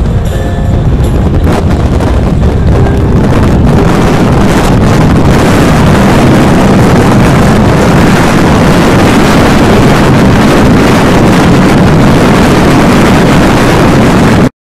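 Wind rushing over the microphone of a camera on a touring motorcycle at road speed, with engine and road noise beneath. It swells over the first few seconds, holds steady and loud, and cuts off abruptly near the end.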